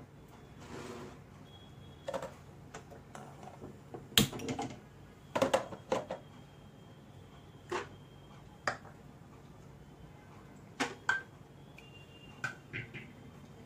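Scattered clicks and knocks of a steel mixer-grinder jar and small bowls being handled and set down on a counter, a few of them with a brief metallic ring.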